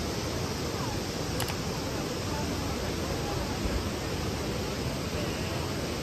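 Steady rushing of a broad row of waterfalls pouring into a lake.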